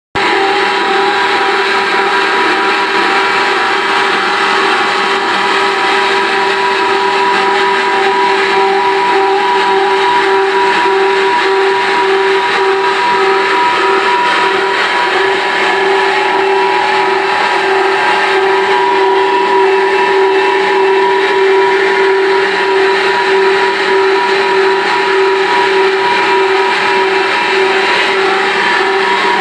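Cross-flow micro-hydro turbine and its generator running steadily: a constant whine at an unchanging pitch over a steady rushing noise.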